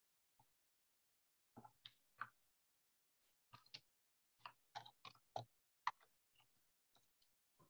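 Near silence broken by faint, irregular clicks and ticks.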